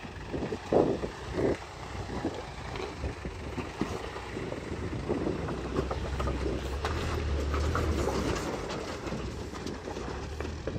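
Toyota Hilux mk3 pickup's engine running low and slow as it crawls over rocks, with stones crunching and knocking under the tyres, heaviest in the first couple of seconds. The engine is loudest as the truck passes close, about six to eight seconds in.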